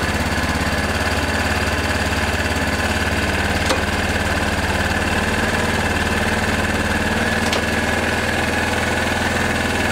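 Chinese Bashan 250 ATV engine idling steadily, with two light clicks, about four seconds in and again about seven and a half seconds in.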